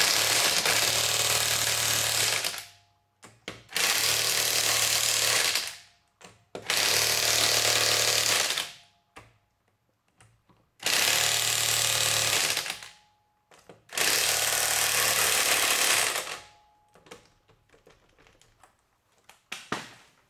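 Impact wrench running in five bursts of about two and a half seconds each, hammering the wheel's lug nuts tight.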